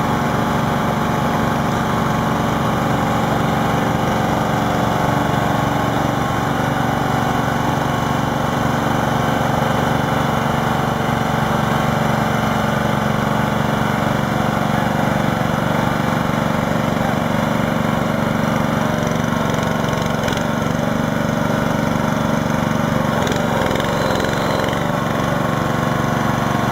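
An engine idling steadily, a constant low running sound with no change in speed.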